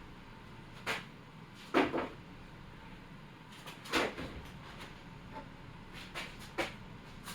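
Scattered wooden knocks and clunks from a brad-nailed wooden box being forced open with hand tools: about five separate hits at uneven intervals, the loudest about two seconds in.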